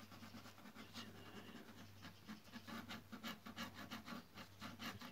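Ballpoint pen scratching on paper in quick short strokes, faint, speeding up to about four or five strokes a second from about two seconds in. A low steady hum runs underneath.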